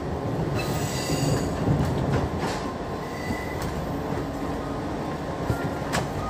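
JR 205 series electric commuter train heard from inside the carriage, running into its final station: a steady rumble of wheels on rail, sharp clicks over rail joints, and short high wheel squeals.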